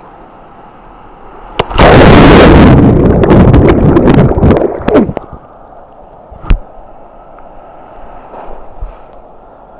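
Ocean surf washing over the camera, water churning loudly against the microphone for about three seconds, then one sharp knock about six and a half seconds in, over a steady hiss of wind and waves.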